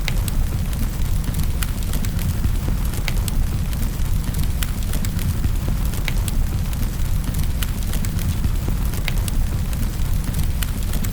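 Fireplace wood fire crackling, with frequent sharp irregular pops over a steady low rumble and an even rushing noise of rain.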